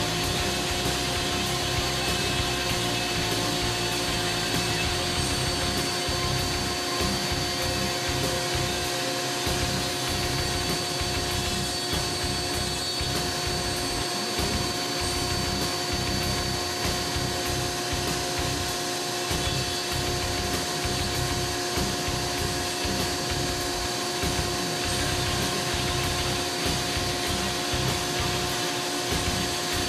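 Foredom flex-shaft rotary tool running with a carbide burr grinding into white cedar, over the steady drone of a dust-collector vacuum; the motors hum steadily while the cutting rasps unevenly underneath.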